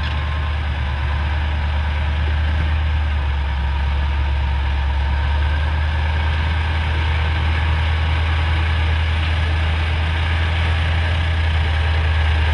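Large diesel engine of a heavy off-road vehicle running steadily, a deep, even hum with no revving.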